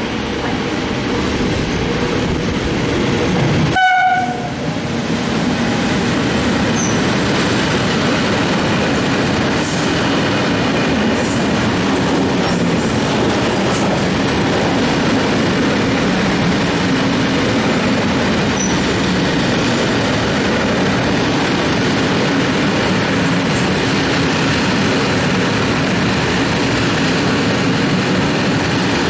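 Electric locomotive hauling a freight train through a station, giving a short horn note about four seconds in. Then a long string of covered freight wagons rolls past close by with a steady rumble and wheel clatter.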